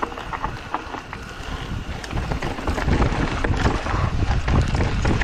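Mountain bike descending a dusty, rocky dirt trail at speed: wind rushing over the microphone, tyres on dirt and loose rock, and the bike rattling and clicking over bumps. It gets louder about three seconds in.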